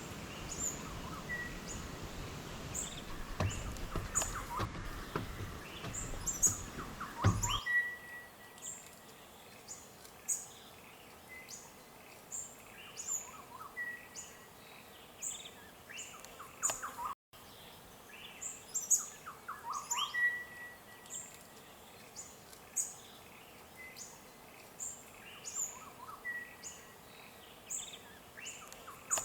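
Several small birds calling: short, high chirps falling in pitch, repeating about once a second, mixed with brief whistled notes. The background hum drops out suddenly about seven and a half seconds in, and there is a short break near seventeen seconds, where the recording is cut.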